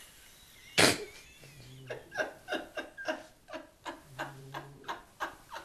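A woman laughing hard: one sharp burst of breath about a second in, then a run of short laughing bursts, about three a second.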